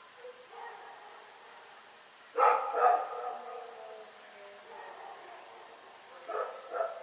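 A dog barking in pairs: two loud barks about two and a half seconds in, then a fainter pair of barks near the end.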